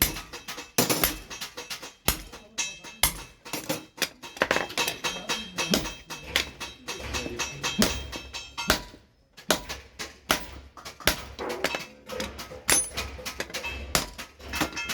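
Irregular hammer blows on hot steel at an anvil, some sharp and ringing, with a brief pause about nine seconds in.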